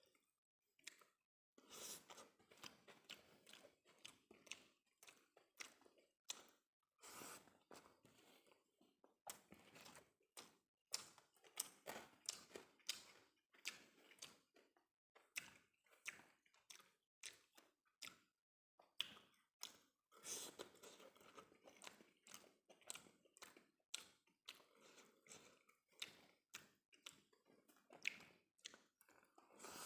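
A person chewing mouthfuls of steamed rice with sausage, eaten by hand: a quiet, continuous run of wet smacks and clicks of the lips and tongue, with short pauses between bites.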